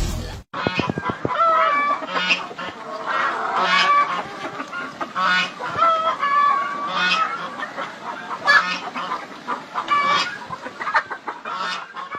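A flock of poultry calling: many squawking, honking calls overlapping, with louder single calls standing out every second or two.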